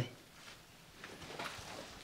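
Faint footsteps and scuffing, a few soft steps from about halfway in.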